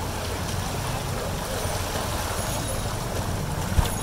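Cycle rickshaw wheels wading through deep floodwater on a street, a steady sloshing and rushing of water over a low rumble, with one sharp thump near the end.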